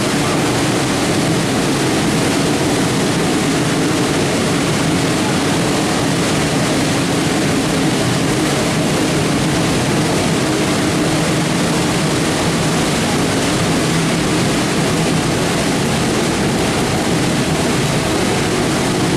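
Steam-hauled train running, heard from an open passenger car behind the locomotive: a loud, steady, unbroken running noise of the train on the rails.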